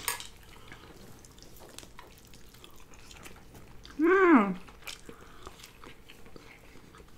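Quiet eating: faint clicks and rustles as fries are picked up and chewed. About four seconds in comes one short hummed voice sound, the loudest thing heard, rising then falling in pitch.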